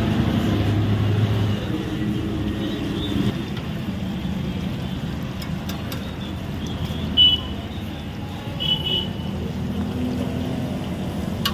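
Steady low rumble of street traffic with faint background voices. Two short high chirps come about seven and nine seconds in.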